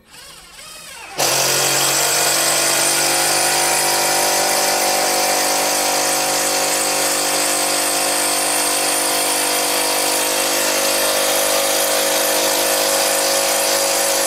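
Mollar CIDR12150U 12-volt cordless impact driver driving an 8 cm screw into jati Belanda (Dutch teak) wood without a pilot hole. The motor spins up, and about a second in the hammer mechanism kicks in and keeps impacting loudly and steadily as the screw goes in.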